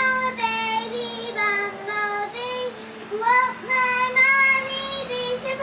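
A young girl singing solo, a high child's voice holding sustained notes of a simple song with short breaths between phrases.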